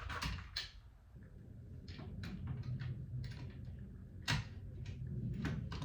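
Small clicks and knocks of deadbolt lock parts being handled and fitted against a metal door, with one sharper knock about four seconds in.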